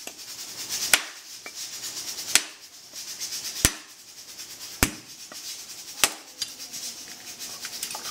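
A cleaver striking a whole dry coconut held in the hand, five sharp knocks about a second and a quarter apart, to crack the hard shell open.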